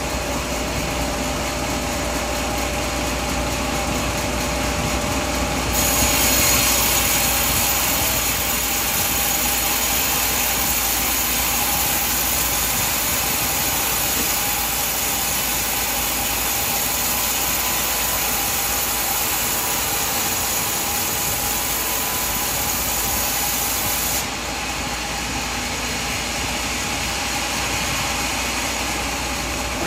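Band sawmill machinery running steadily with an engine-like hum. A louder high hiss joins about six seconds in and cuts off suddenly about 24 seconds in.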